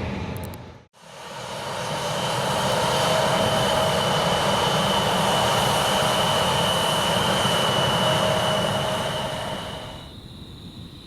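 Jet airliner engines running loud and steady, with a high whine over a lower hum. The sound dips out briefly about a second in, then swells back and holds, and drops away sharply near the end.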